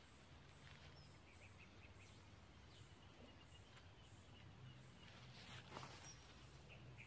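Near silence: faint outdoor ambience with a few faint, short, high chirps.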